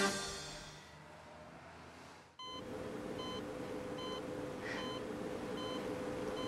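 Bedside patient monitor beeping steadily, a short high beep about every 0.8 seconds over a low steady hum. It starts about two and a half seconds in, after music fades out.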